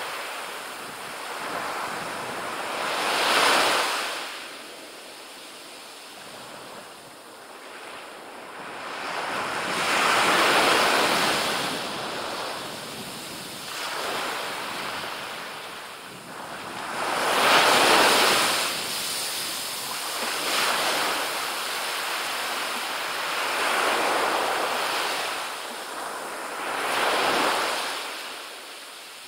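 Small waves breaking and washing up a sandy beach, the surf swelling and fading in surges a few seconds apart.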